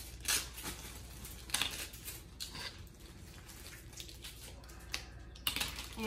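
Plastic toy packaging crinkling and rustling in irregular bursts as it is handled, with small taps.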